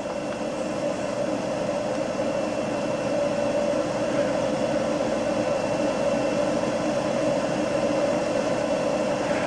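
A steady mechanical hum with a faint high whine above it, swelling slightly in the first couple of seconds and then holding even.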